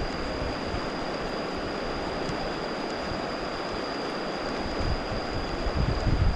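Steady rushing of flowing water, with a thin steady high-pitched tone over it and a few low rumbles near the end.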